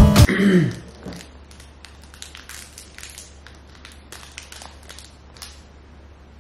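A music cue ends in the first second. Then quiet, irregular crinkling and clicking of snack packaging being handled, dying away after about five seconds.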